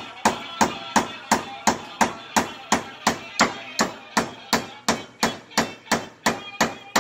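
Steady hand-hammer blows at about three a second, each a sharp strike with a short ring.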